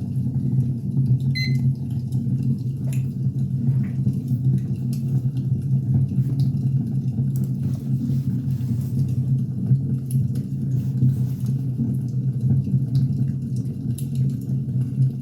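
Wood fire burning: a steady low rumble of flames with scattered sharp crackles and pops of the burning logs.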